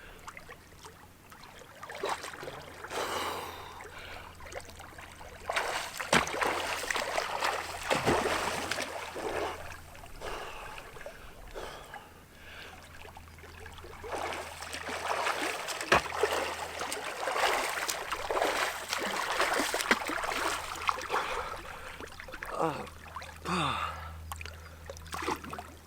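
Water splashing and sloshing irregularly as a person swims in a cold lake, with short gasping breaths near the end.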